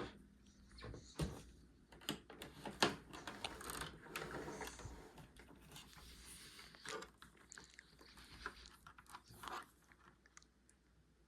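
Quiet handling noises: irregular clicks, taps and rustles. They die away into near quiet shortly before the end.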